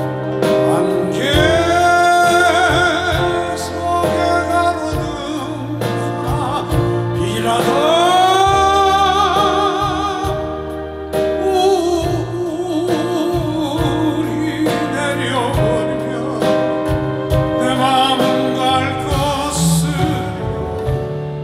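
A slow ballad played live by a band, with long melody notes that slide up and then waver in a wide vibrato over sustained accompaniment.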